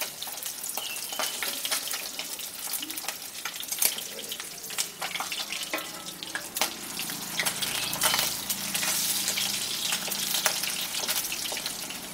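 Pabda fish frying in hot mustard oil in a kadai: a steady, dense sizzle with many small sharp pops of spattering oil.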